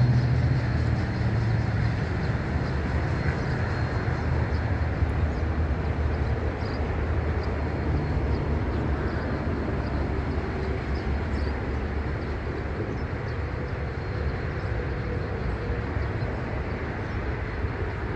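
SCT class diesel-electric locomotive running light engine (no train behind it), its diesel engine giving a steady low hum that slowly fades as it moves away.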